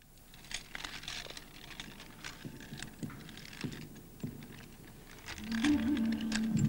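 Scattered light clicks, taps and scrapes of a small toy tractor being handled and pushed over the ground. A little after five seconds a steady low hum starts and becomes the loudest sound.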